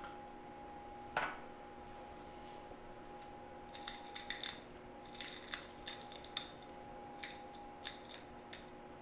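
Handheld salt and pepper mill being twisted, grinding in short bursts of small clicks through the middle and later part. A single knock about a second in is the loudest sound.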